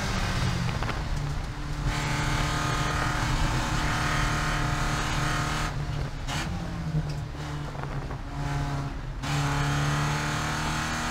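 Porsche 944 Spec race car's four-cylinder engine heard from inside the cockpit while braking for a corner. The note falls and thins as the driver lifts about two seconds in, with a brief break around six seconds in during the downshift to third. From about nine seconds in the engine pulls louder again under throttle.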